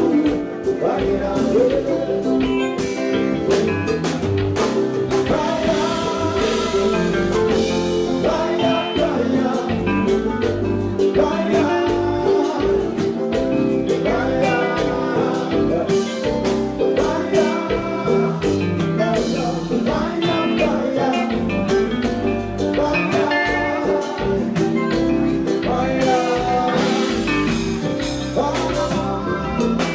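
Live kompa band playing, with a male lead singer over electric guitars and a drum kit.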